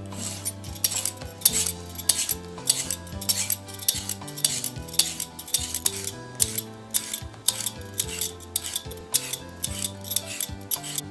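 Steel Y-peeler scraping thin strips of skin off a daikon radish and a carrot in quick repeated strokes, about two a second. Soft background music plays underneath.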